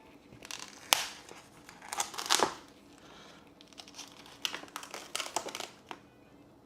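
Kitchen packaging crinkling and rustling in irregular bursts as it is handled and opened, with a sharp snap about a second in.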